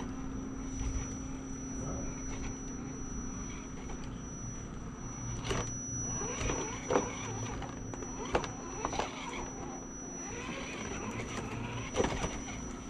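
Axial SCX10 RC crawler truck's electric drivetrain whining steadily as it crawls over rock, with several sharp knocks of its tyres and chassis against the rock, the loudest about seven seconds in and near the end.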